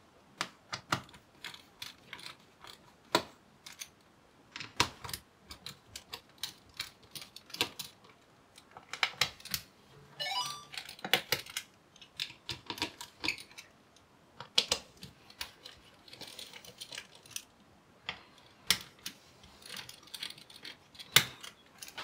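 Small, irregular clicks and ticks of a precision screwdriver undoing the tiny screws that hold a laptop's heatsink, with a brief rising squeak about ten seconds in.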